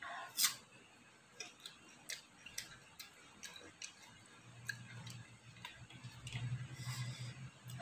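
Faint, scattered light clicks and taps, about two a second with a sharper one near the start, from eating and handling food at a table. A low hum comes in about halfway through.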